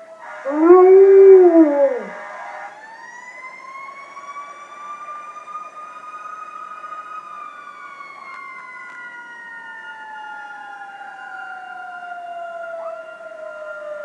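A German Shepherd gives one loud howl about half a second in, its pitch rising and then falling. After it, a fire truck siren winds slowly up and then slowly down in one long wail.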